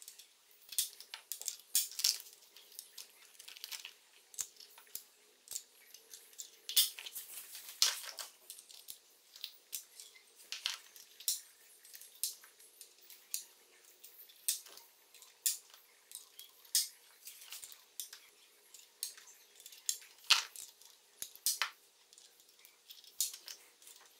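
Oiled shimless valve buckets being picked out of a plastic parts organizer and dropped one by one into the lifter bores of a Toyota 2JZ cylinder head: irregular light metallic clicks and clinks, a few at a time, with plastic rattles from the case.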